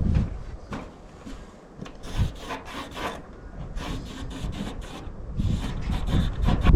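A run of short rubbing, scraping strokes as metal roof flashing is handled and marked out on the roof for cutting.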